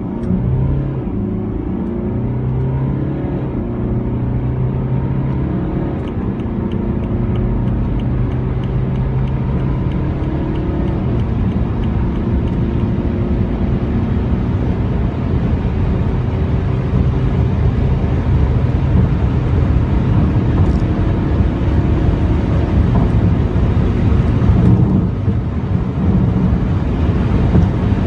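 A 190 hp two-litre four-cylinder turbodiesel car accelerating hard, heard from inside the cabin. The engine note climbs slowly in pitch and drops back at each upshift, under steady rumble and road and wind noise that build as the car passes 150 and nears 200 km/h.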